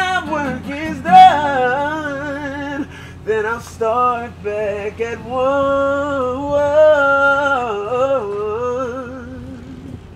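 A man singing solo, with quick vocal runs and long held notes sung with a wide vibrato, the voice fading toward the end of the phrase.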